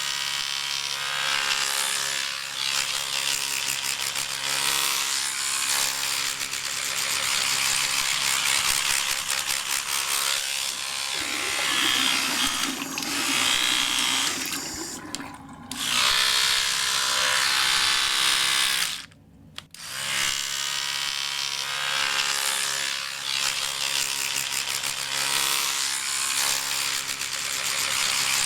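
Electric toothbrush motor buzzing steadily with the hiss of scrubbing bristles. Its sound turns lower and rougher for a few seconds in the middle, and it stops for about a second roughly two-thirds through before starting again.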